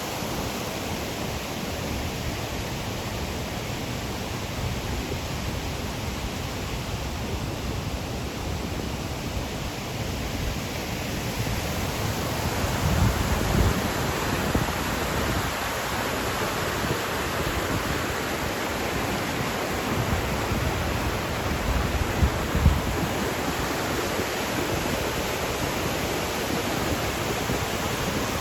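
Waterfall pouring steadily, a full even rush of falling water, its flow swollen by a week of rain. It grows a little louder about twelve seconds in, with two brief low rumbles on the microphone.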